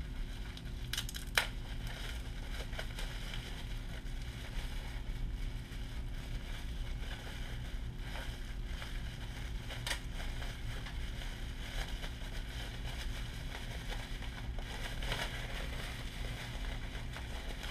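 Packaging being unwrapped by hand: tape pulled off and wrapping crinkling and rustling, with a few sharp clicks, over a steady low hum.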